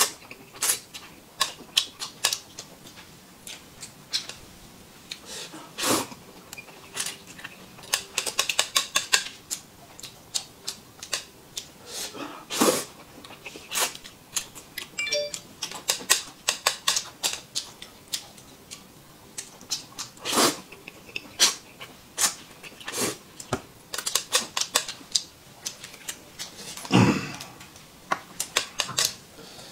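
A man eating noodles at close range: loud slurps and wet, smacking chewing, with quick runs of small mouth clicks between several longer slurps.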